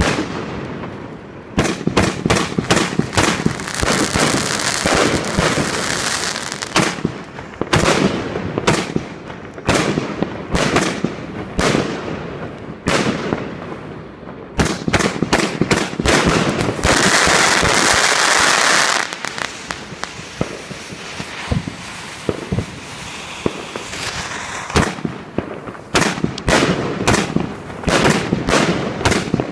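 A 160-shot firework cake firing a rapid string of shots, each a sharp bang. A little past the middle, a dense stretch of steady crackling hiss lasts about two seconds.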